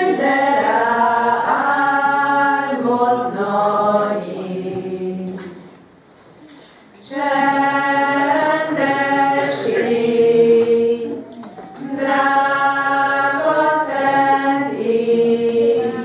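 A folk-song choir, mostly women's voices, singing a song in long held phrases, with short breaths between phrases about six seconds in and again around eleven seconds.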